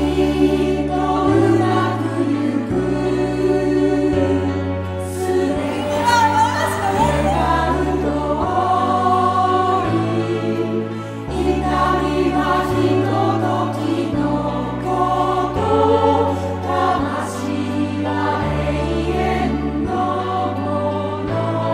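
Choral music: a choir singing sustained lines over a slow bass that moves to a new note about every second and a half.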